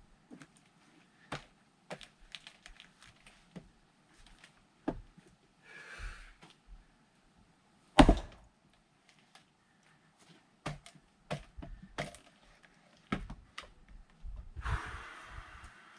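Firewood splitting: one hard axe blow on a log about halfway through, the loudest sound, among lighter wooden knocks and clatter of split pieces being handled. Two short breaths, one just before the blow and one near the end.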